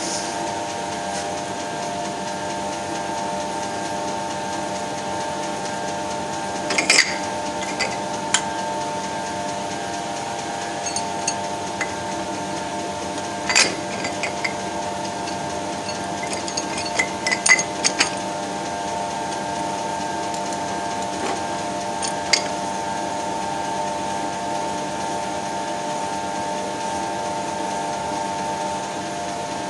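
Steady hum of a running workshop machine, with a few sharp metallic clicks and taps as a steel bolt is pushed into the lathe chuck and clamped.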